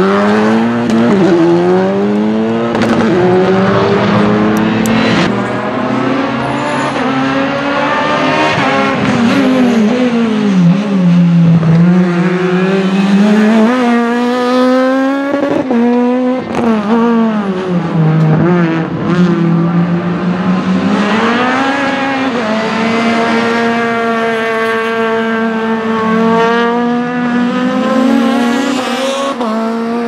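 Rally cars' four-cylinder engines driven hard through corners, one car after another: a Skoda Fabia RS Rally2 and a Renault Clio S1600. The engine pitch climbs and drops over and over as the drivers accelerate, change gear and lift off.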